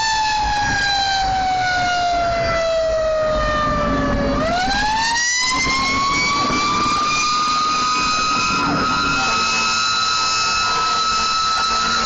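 Fire truck siren winding up to a wail, sliding slowly down in pitch for about four seconds, then winding up again and holding a steady high pitch, over the low rumble of the truck's engine.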